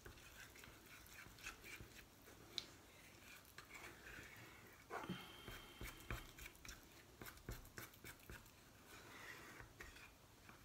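Faint scraping and light clicking of a spoon stirring a thick shampoo-bar paste in a small metal saucepan, with one sharper click a couple of seconds in.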